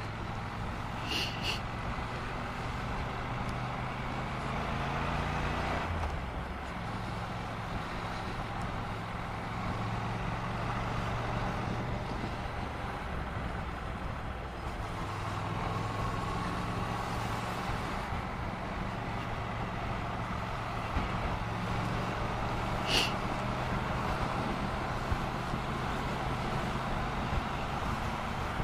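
Honda NC750X's parallel-twin engine running under way at town speed, heard from the bike with road and wind noise, the engine note stepping a few times. Two brief high chirps cut through, one about a second in and one about two-thirds through.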